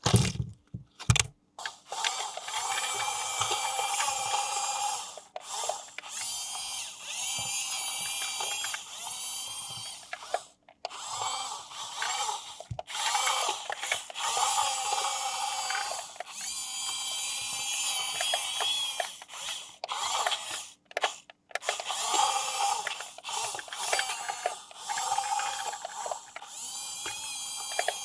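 Small electric motor and plastic gearbox of a toy RC vehicle whirring in repeated bursts of a few seconds, the whine shifting in pitch, with short pauses between bursts. A few sharp clicks come first.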